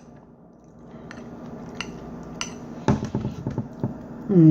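Light clinks and taps of cutlery against dishes during a meal: a few single clicks, then a quicker cluster about three seconds in. Near the end comes a short hummed voice sound, falling in pitch, which is the loudest thing here.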